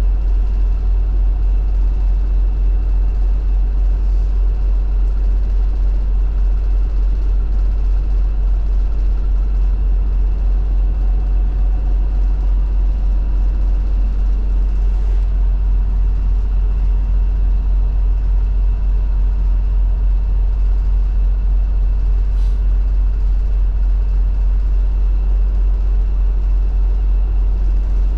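A tour boat's engine running steadily, a loud deep hum with a few steady tones above it and no change in pitch, heard from aboard.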